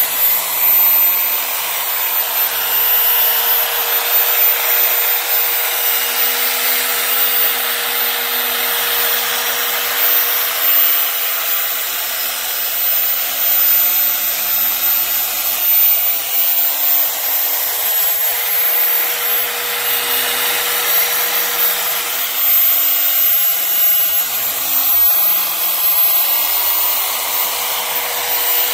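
Electric machine polisher with a small foam pad running steadily on speed 4, buffing polish into a plastic headlight lens under medium pressure. It gives a steady motor whine over the hiss of the spinning pad.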